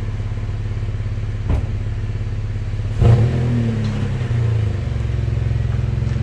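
Pickup truck engine idling steadily behind the unhitched trailer. There is a sharp click about a second and a half in and a louder metallic clunk about three seconds in, after which the engine sound rises a little as the truck pulls forward.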